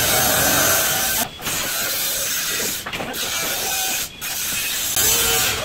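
Loud, noisy mechanical clatter and rasping of demolition work, cut off sharply for a moment three times.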